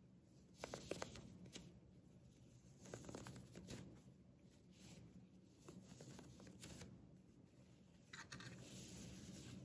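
Faint rustling of a cloth headband being handled by fingers, with a few soft ticks early on and a steadier stretch of fabric rustling starting about eight seconds in.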